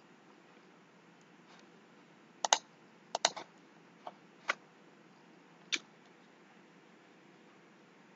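Clicking on a computer: about eight short, sharp clicks, some in quick pairs, between about two and a half and six seconds in, over a faint steady hiss.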